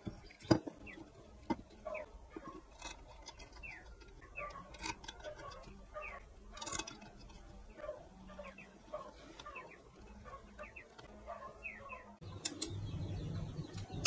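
Small birds chirping over and over in short falling notes, mixed with sharp clicks and taps. About twelve seconds in, a low steady hum comes in.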